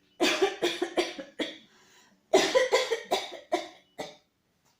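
A woman coughing hard in two fits of four or five coughs each, the fits less than a second apart.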